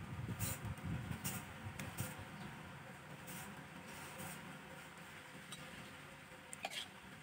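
Metal ladle knocking lightly against a ceramic bowl while food is served, a handful of short clinks scattered through, with a brighter double clink near the end, over a low steady rumble.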